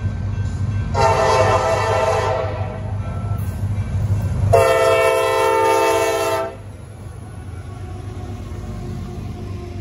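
CSX freight train led by an SD70MAC diesel locomotive passing close: two long horn blasts, about a second in and about four and a half seconds in, the second one the loudest, over a steady low diesel engine rumble. After the second blast the locomotives go by and the covered hopper cars roll past with a quieter, steady rolling noise.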